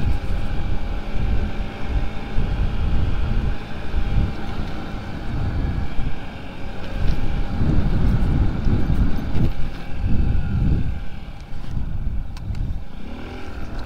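Honda Ruckus scooter's small engine running while being ridden at low speed, with wind buffeting the microphone.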